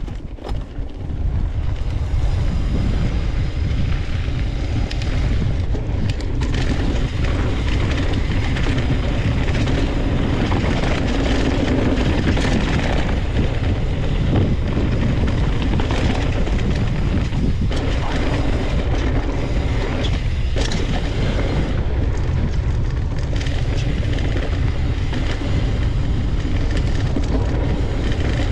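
Wind buffeting the camera microphone, with knobby tyres rolling and rattling over a dirt trail as a Polygon Siskiu N7 mountain bike rides at speed. The noise rises about a second in and stays loud and steady, with scattered knocks from the trail.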